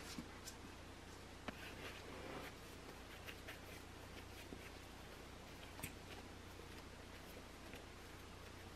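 Faint handling sounds of bagel dough being shaped by hand: a few soft taps and ticks and a brief rustle, likely parchment paper on the baking tray, over a steady low hum of room tone.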